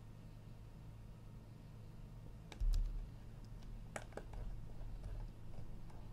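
Scattered computer keyboard and mouse clicks at a desk, a few sharp taps mostly in the second half, with one low thump a little before halfway. A steady low electrical hum runs under them.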